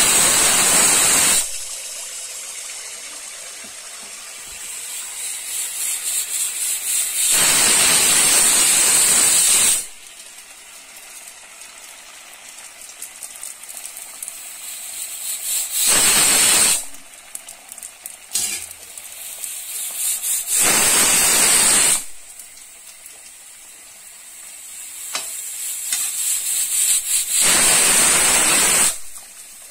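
Pressure cooker whistling in five loud hissing bursts, each one to three seconds long and several seconds apart, each building up and then cutting off suddenly. Between them is the steady sizzle of dhuska batter deep-frying in hot mustard oil.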